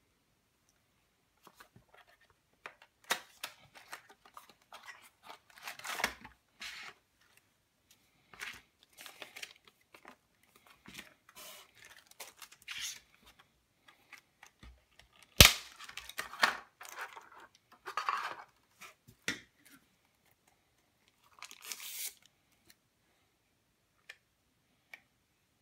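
Unboxing by hand: a cardboard box and clear plastic packaging rustling and crinkling in short bursts, with scattered clicks and one sharp snap about halfway through. It goes quieter near the end, with a couple of light plastic clicks.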